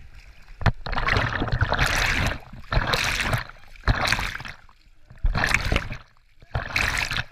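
Hand paddling river water beside an inflatable tube: splashing and sloshing close to the microphone in about five bursts, roughly one every second and a half.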